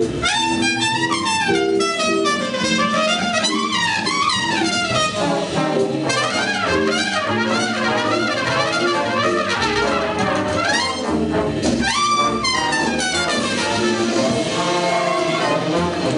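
Jazz band playing, led by a brass horn in fast runs and swooping pitch glides over sustained chords from the band.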